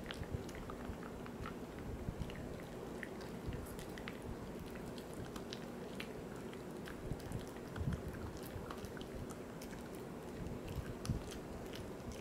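Poodle chewing a Virbac C.E.T. VegiDent dental chew, with irregular small clicks and crunches of teeth working on the chew.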